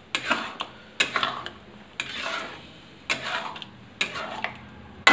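A metal spoon stirring thick curry in a metal kadhai, scraping and knocking against the pan in strokes about once a second.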